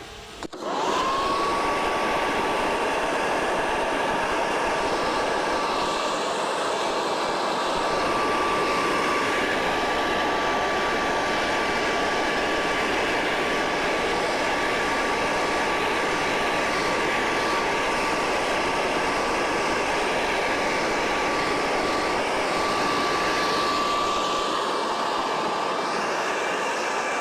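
A blower switched on, its motor spinning up with a quickly rising whine and then running steadily at full speed, with a rush of air, as it blows sawdust off a miter saw and stand.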